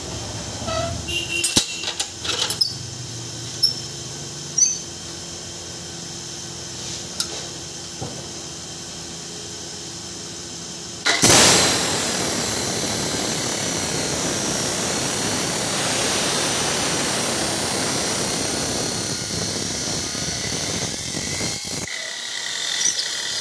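Abrasive chop saw cutting steel tube: a low hum with a few clicks and knocks, then about halfway through the cut-off wheel bites into the metal with a sudden loud, steady grinding hiss that lasts about ten seconds, dropping briefly near the end.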